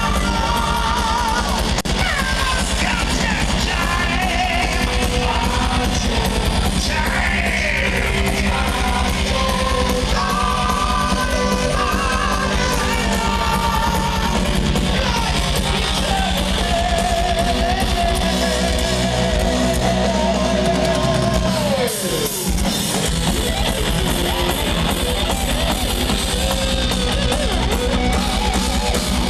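Power metal band playing live, heard loud from the crowd: high sung vocal lines with vibrato over electric guitars, bass and drums. A long held note is followed about 22 seconds in by a falling slide as the low end drops out for a moment, then the full band comes back in.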